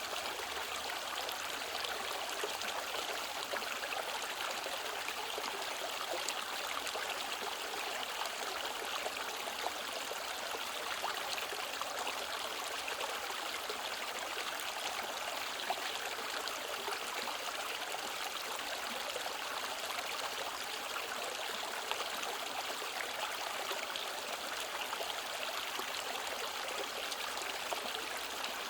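Mountain valley stream running, a steady, unbroken rush of water.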